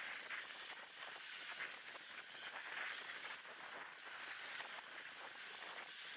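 Small waves breaking and washing up a shingly beach, with gusty wind on the microphone: a faint, thin hiss that swells and fades, its low end stripped out by noise reduction and a high-pass filter.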